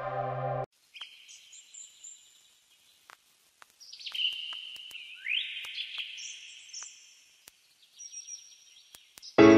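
Birds chirping in a natural ambience: a string of separate short high calls and trills with gaps between them, one clearly rising call about halfway through. Music cuts off sharply just under a second in and comes back in loudly near the end.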